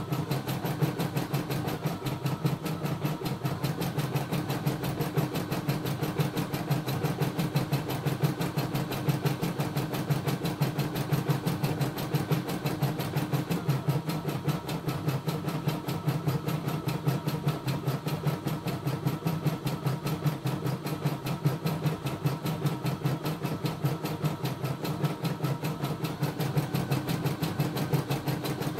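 CNY E960 computerized embroidery machine stitching a design: a fast, even run of needle strokes over a steady motor hum, which shifts slightly in pitch now and then.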